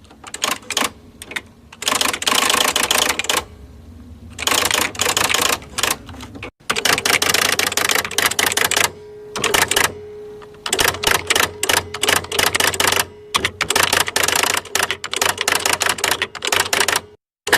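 Electronic typewriter typing: fast runs of key strikes, each a second or two long, separated by short pauses. A faint steady hum runs under the typing through the second half.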